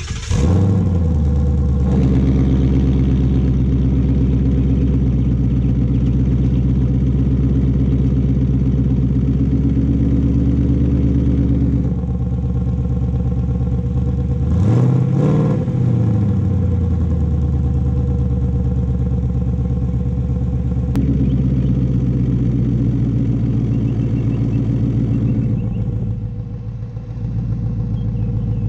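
2019 Ford Mustang GT's 5.0-litre V8 starting up with a flare that settles into a steady idle through an Armytrix valved cat-back exhaust. About twelve seconds in, the exhaust valves close and the idle turns slightly quieter. A few seconds later a single short rev rises and falls, and near the end the sound dips and picks up again.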